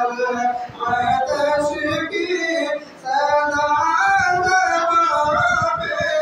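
A man's voice singing in a melodic, chanting style into a microphone, with long held notes and a short break about halfway through.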